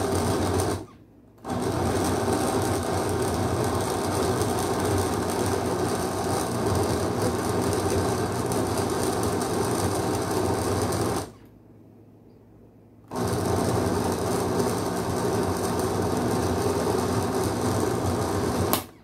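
Electric blender running, grinding a full jar of sauce ingredients down toward a smooth purée. The motor stops briefly about a second in, for about two seconds past the middle, and again near the end.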